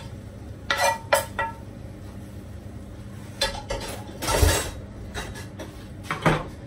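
Cookware clinking and scraping against a china plate as cooked chicken pieces are slid off a frying pan onto it, with a few sharp clinks about a second in and a louder clatter of pans about four seconds in.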